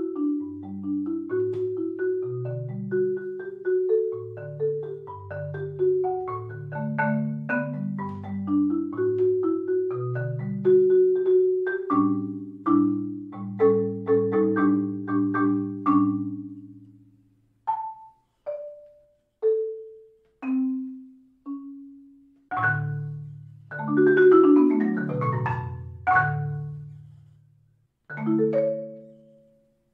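Marimba music: a bright melody of mallet strikes over longer low bass notes, thinning about halfway through to single notes separated by short silences, then a quick run of notes and a last couple of strikes.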